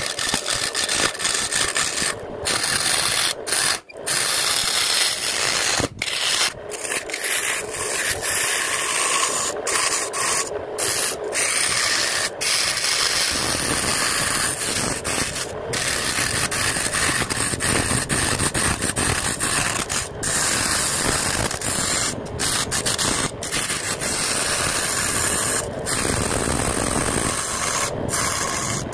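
Turning tool cutting a spinning jackfruit-wood blank on a lathe: a continuous scraping rasp, broken by several brief dropouts.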